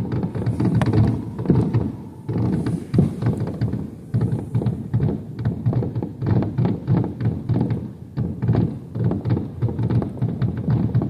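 A fireworks display going off in quick succession: a dense, uneven string of booms and sharp bangs, several a second, with no real pause.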